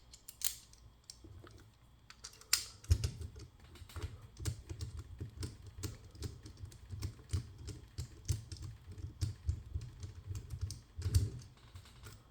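Small metal clicks and taps of a hex driver and padlock parts being handled while a Paclock 100A padlock is unscrewed and taken apart: a rapid, irregular run of clicks, thickest from about three seconds in until near the end.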